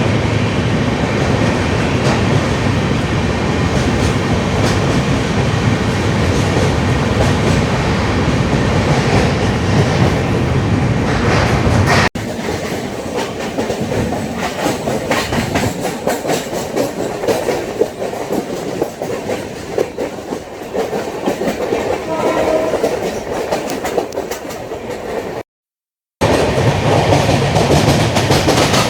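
LHB passenger coaches running at speed, a steady rumble of wheels on track with irregular clicks over rail joints. About twelve seconds in, the sound drops abruptly to a quieter, thinner rumble, then cuts out for a moment near the end before coming back louder.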